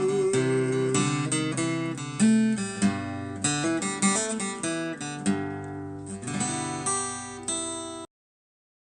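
Acoustic guitar playing the closing run of a blues song: single plucked notes and strummed chords, ending on a last chord. The sound cuts off abruptly about eight seconds in.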